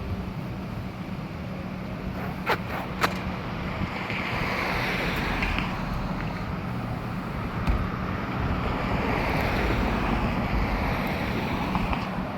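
Road traffic going by: a rushing swell of tyre and engine noise, with wind on the microphone. Two sharp clicks come about two and a half and three seconds in.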